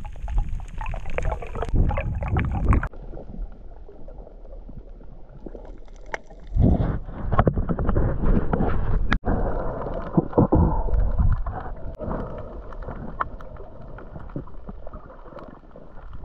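Muffled underwater sound of water moving around a submerged camera: rushing and gurgling that surges and eases, with a few sharp clicks and knocks.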